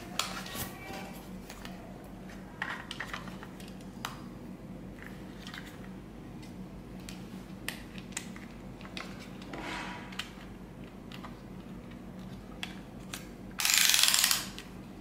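Plastic phone-holder cradle being handled, with scattered small clicks and some rustling of its non-woven wrapping. Near the end comes one loud ratcheting burst, just under a second long, as the spring-loaded side clamp arms are worked.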